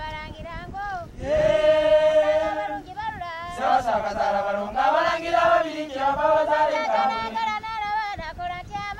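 Unaccompanied Ganda group singing for a baakisimba dance, with men's and women's voices. One voice sings at first, and about a second in several voices come in on long held notes. No drums are playing.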